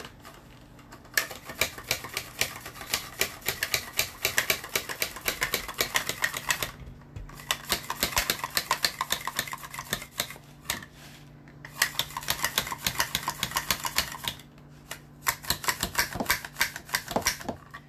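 A carrot being slid quickly back and forth across the blade of a handheld mandoline slicer (a Tupperware MandoChef), each stroke a sharp rasping click. The clicks come in four quick runs with short breaks between them.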